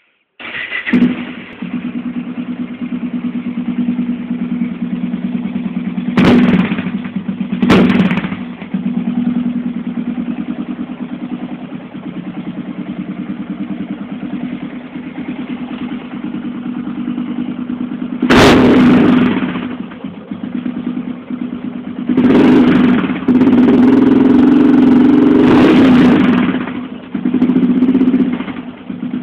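Yamaha XT 600 single-cylinder four-stroke engine breathing through a Tenax aftermarket exhaust, starting up about half a second in and settling to a steady idle. It is revved up briefly several times, with a longer held rev of a couple of seconds near the end. The sound echoes off the walls of a garage.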